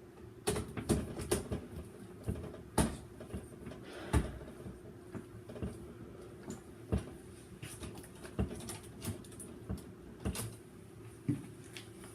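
Irregular light clicks and knocks of hands handling wires and tools, several a second at times, over a steady low hum.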